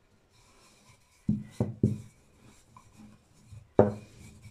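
Wooden rolling pin rolling dough thin on a silicone mat over a table, with faint rubbing and a few dull knocks: three close together about a second in and one more near the end.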